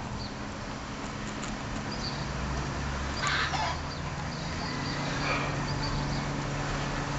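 Outdoor ambience: repeated short, high bird chirps over a steady low hum, with one louder, short animal call about three seconds in.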